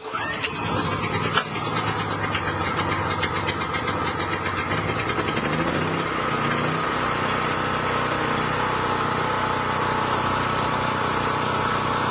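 DuroStar DS4000S portable generator's 7-horsepower air-cooled overhead-valve engine running steadily at a constant speed.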